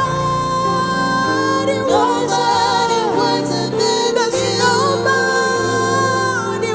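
Gospel praise music: a voice singing long, wavering held notes without clear words over a steady accompaniment whose low notes change every second or so.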